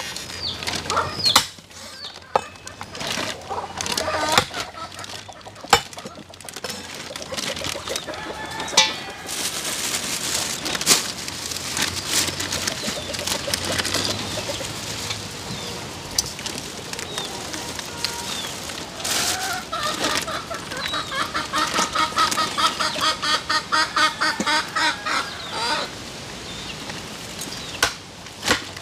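Chickens clucking, with a fast run of clucks about twenty seconds in. Early on, a knife chops meat on a wooden board in sharp knocks, and later plastic bags rustle.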